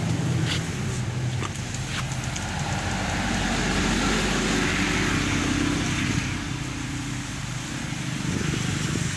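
A steady engine hum from a motor vehicle running nearby, with a few faint clicks in the first couple of seconds and the noise swelling a little in the middle.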